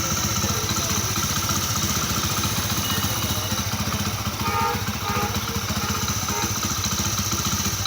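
Rebuilt Hero Honda Passion Pro single-cylinder four-stroke engine idling steadily with an even exhaust beat, running smoothly after reassembly.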